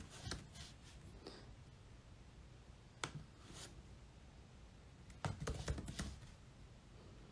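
Faint, scattered light clicks and taps in a quiet room, with a short run of them about five seconds in.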